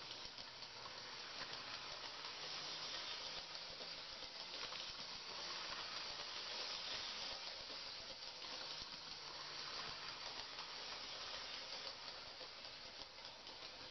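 Toy electric train locomotive running around three-rail tubular track, its motor and wheels making a steady rattling whir that grows louder toward the middle and eases off near the end. The motor is fed pulse-width-modulated DC from a remote-controlled throttle.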